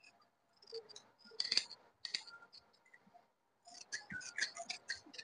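Large tailor's scissors cutting through dress fabric: quiet, irregular snips and blade clicks in short runs, busiest near the end.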